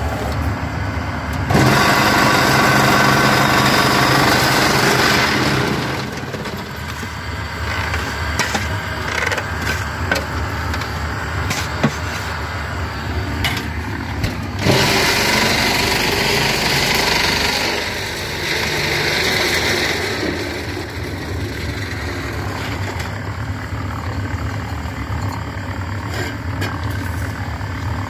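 Cement block-making machinery running with a steady motor hum. It grows louder twice, for about four seconds near the start and for about five seconds in the middle.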